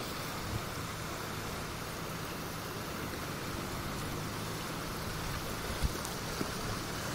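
Steady rushing of a swollen river in flood, its fast current running along an eroding earth bank. A brief thump about six seconds in.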